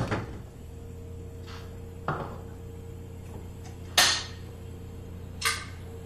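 Refrigerator door pulled open with a thud, then a steady low hum. Three short knocks and clicks follow, about two, four and five and a half seconds in, as things on the fridge shelves are handled; the one at four seconds is the sharpest.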